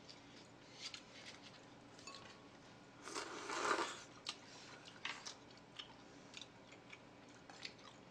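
Eating sounds at a table: light clicks of chopsticks and tableware against plates, with a louder mouth sound of eating off the chopsticks lasting about a second, about three seconds in.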